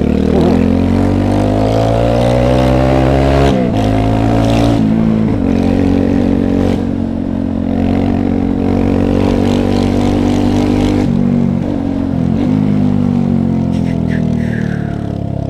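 Yamaha YS 250 Fazer's single-cylinder four-stroke engine pulling away under throttle, its pitch rising, then breaking off sharply about three and a half seconds in and settling into steady running at road speed. Near the end the pitch drops briefly as the throttle eases, then picks up again.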